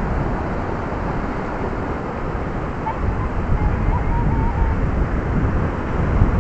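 Wind buffeting the phone's microphone as a steady low rumble, over small waves washing in over the shallows.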